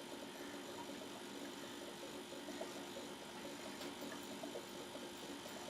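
Room tone: a steady low electrical hum and hiss from the recording setup, with a faint click about four seconds in.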